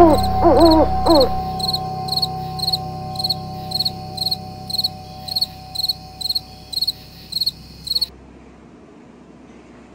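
Night ambience: an owl hooting over a low rumble in the first second or so, then a cricket chirping steadily about twice a second, all cutting off suddenly about eight seconds in.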